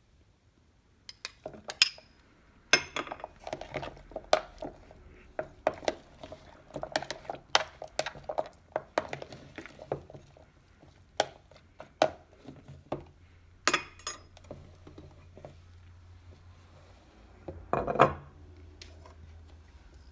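Utensils clinking and scraping against dishes, a run of irregular sharp clinks that starts about a second in, with a louder cluster near the end.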